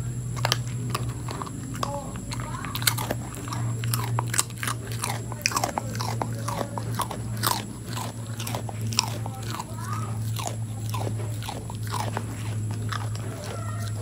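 A dog crunching and chewing a thin, hard biscuit: irregular sharp crunches, some in quick clusters, over a steady low hum.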